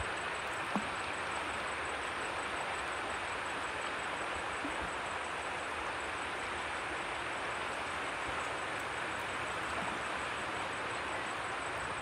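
Steady rushing of flowing river water.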